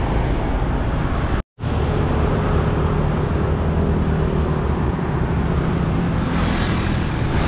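Steady road traffic: cars and pickups passing, with a continuous engine hum and tyre noise. The sound drops out completely for an instant about a second and a half in.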